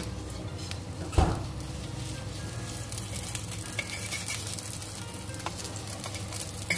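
Salmon fillets frying in a little oil in a wok, sizzling and crackling steadily, as a metal slotted spatula scrapes under a fillet and turns it. A sharp knock about a second in is the loudest sound.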